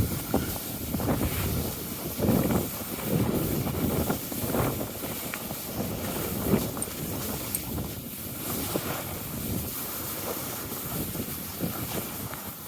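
Wind rushing over the microphone while skiing downhill, with the hiss of skis on snow, swelling and easing irregularly.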